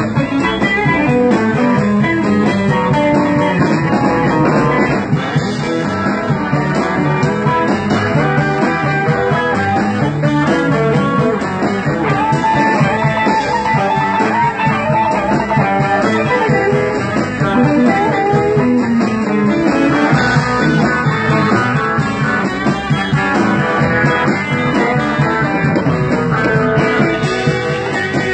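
Live electric blues band playing: electric guitar carries the lead over bass and a steady drum beat.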